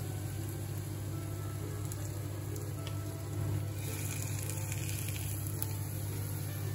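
Semolina-coated pomfret shallow-frying in hot oil in a non-stick pan: steady sizzling with scattered small crackles, a little brighter about four seconds in. A steady low hum runs underneath.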